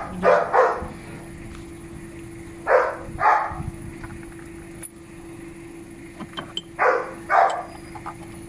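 A dog barking in pairs: two quick barks near the start, two about three seconds in, and two more about seven seconds in, over a steady faint hum.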